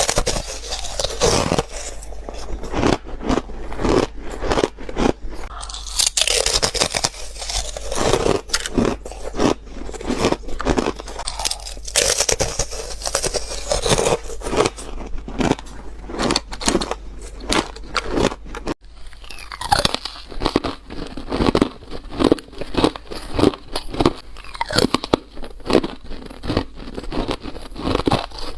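Close-miked biting and crunching of chip ice: crisp crunches several times a second with no let-up.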